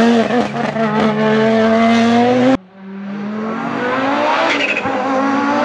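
Audi Sport Quattro rally car's turbocharged five-cylinder engine revving hard under acceleration, its pitch climbing. The sound cuts off suddenly about two and a half seconds in, then builds again, rising in pitch and getting louder as the car approaches.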